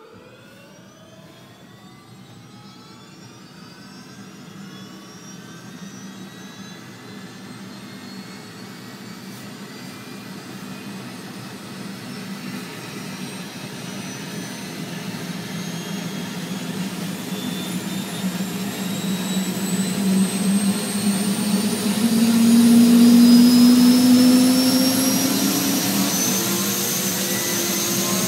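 Helicopter turbine engine starting and spooling up: a whine that climbs steadily in pitch and grows louder throughout, over a lower drone that swells to its loudest a little over twenty seconds in.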